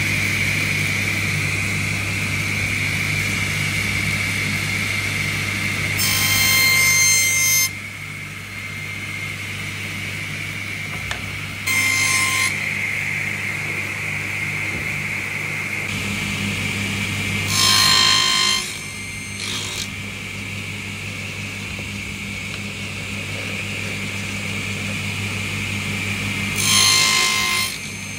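Table saw running steadily with a high whine, its blade cutting through small wooden strips four times. Each cut is a louder burst lasting about a second: one about six seconds in, shorter ones at about twelve and eighteen seconds, and the last near the end.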